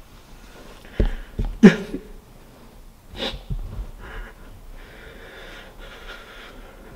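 A frightened teenage boy breathing heavily and sniffling: two soft thumps about a second in, then a short whimpering gasp that falls in pitch, another sharp breath a little after three seconds, and faint breathing after that.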